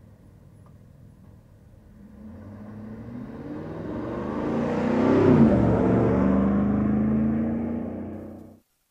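2009 Chevrolet Silverado's 6.2-liter V8 pickup driving toward and past, getting louder as it approaches, loudest a little over five seconds in, with the engine pitch dropping as it goes by. The sound cuts off suddenly near the end.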